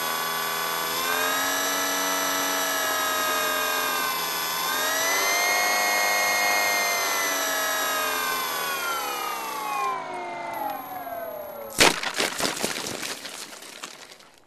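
A radio-controlled model airplane's motor and propeller whine from on board, the pitch rising and falling with the throttle, then sliding down as the throttle is cut. About twelve seconds in, a sharp knock and a run of scraping rattles as the plane touches down and skids across rough, dry ground, fading out near the end.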